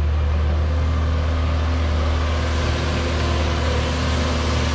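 Diesel engine running steadily with an even, low hum that does not change in pitch.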